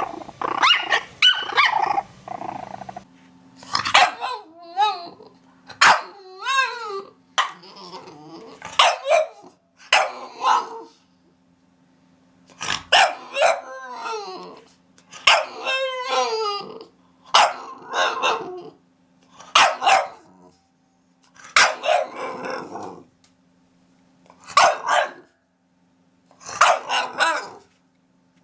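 Puppies barking in short high-pitched barks and yelps, some bending in pitch like whines, coming in clusters with brief pauses between them.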